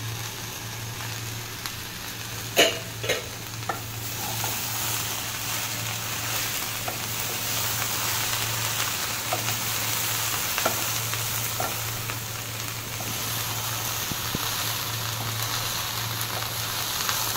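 Mixed vegetables and paneer cubes sizzling in hot oil in a non-stick kadai as they are stir-fried with a wooden spatula, the vegetables nearly fried. A few sharp knocks come about three seconds in, over a steady low hum.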